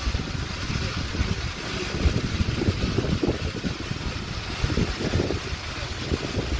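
Steam locomotive and its train rolling slowly into a station: a steady rumble, with wind gusting irregularly on the microphone.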